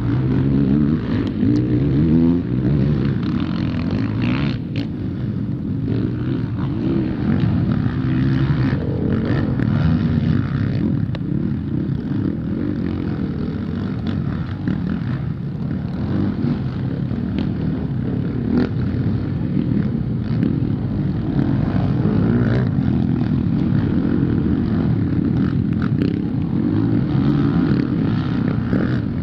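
Several motocross bikes racing on a dirt track, their engines revving up and falling back over and over as they go round.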